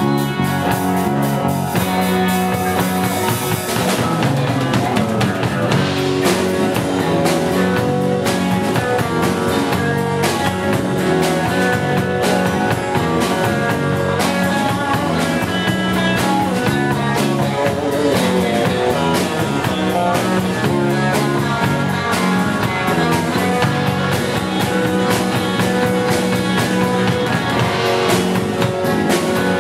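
Live rock band playing: strummed acoustic guitar, electric bass and drum kit keeping a steady beat. A cymbal wash rings over the first few seconds.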